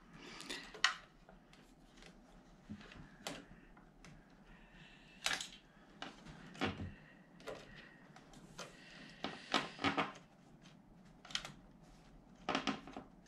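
Scattered light clicks and knocks of small metal parts and a hand tool being handled while a quilting-frame carriage wheel is refitted with its screw. They come irregularly, with a few sharper knocks about five, seven and ten seconds in.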